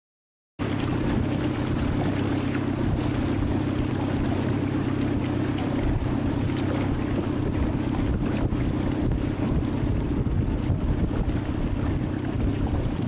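Wind buffeting the microphone over a steady low rumble and the wash of choppy water. It starts abruptly about half a second in.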